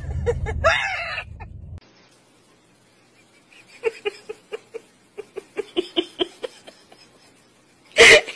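Pomeranian making a quick run of short, clipped vocal sounds, about four a second, then one loud, sharp yap as it lunges near the end. Under two seconds of low rumble come first.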